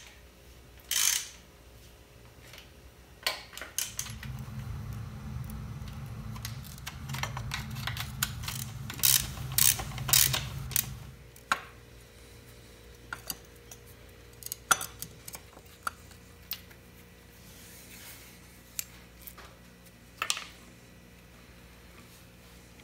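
Hand tools working loose the engine mounting nuts and bolts on a 1961 Norton Manxman 650: irregular metal clicks, clinks and knocks of the tool on the fasteners and of nuts being set down. A steady low hum runs under it from about four to eleven seconds in.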